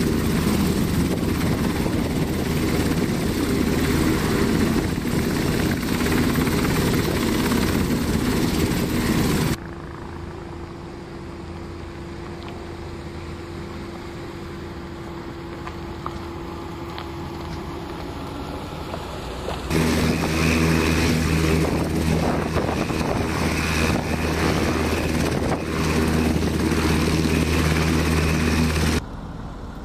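UH-60 Black Hawk helicopters running on the ground with their twin turboshaft engines and main rotors turning: a loud, steady rotor and turbine noise. It drops to a quieter steady engine sound for about ten seconds in the middle, as a pickup truck drives along a dirt track, then the loud helicopter noise returns and cuts off shortly before the end.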